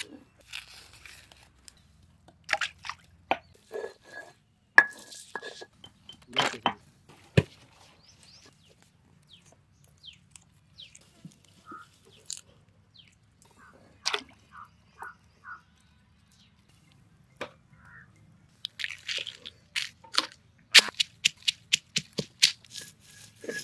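Curry vegetables (chillies, onions, tomatoes, ginger and garlic) being cut up with a knife: irregular sharp crunching cuts, sparse in the middle and coming thick and fast near the end.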